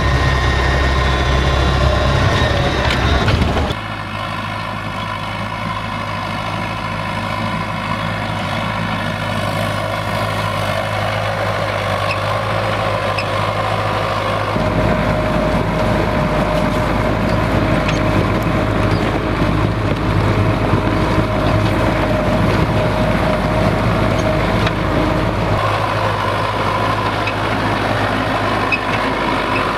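Belarus MTZ-82 tractor's four-cylinder diesel engine running steadily while pulling a plough through frozen ground. It is heard loud and close from inside the cab for the first few seconds, then from outside the tractor after an abrupt change.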